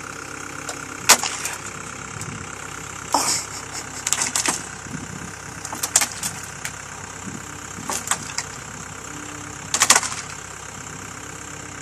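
Cat 246B skid steer loader's diesel engine running steadily at idle. A handful of sharp knocks and clatters break through it, the loudest about a second in and another near the end.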